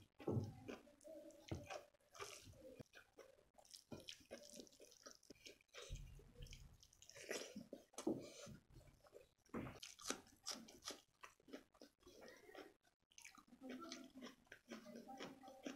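Faint wet squishing of fingers mixing rice into palak paneer on a plate, and chewing of a mouthful, as irregular small clicks and smacks.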